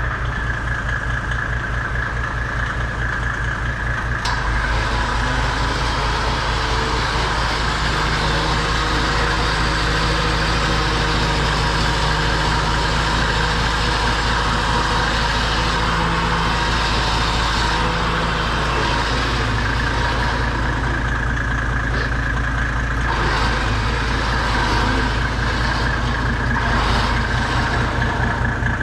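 An engine or motor running steadily at idle, with an even low pulse, getting a little louder about four seconds in.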